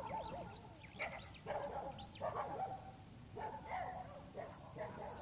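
Dog barking in repeated short bouts, a cluster of barks every half second to a second.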